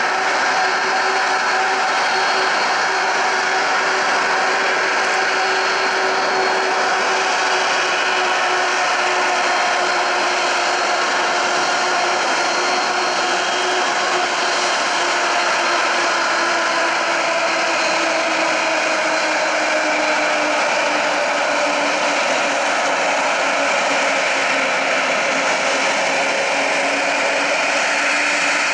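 Airbus A380's jet engines running at taxi power: a steady rushing hiss with a whine that slowly falls in pitch.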